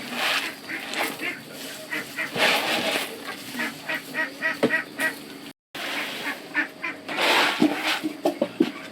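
Animals making repeated short, high calls, with a break in the sound about five and a half seconds in.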